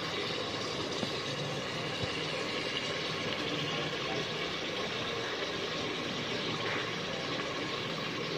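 Seekh kebab karahi simmering in tomato gravy in a pot on the stove, under a steady hiss and hum, with a couple of faint ticks.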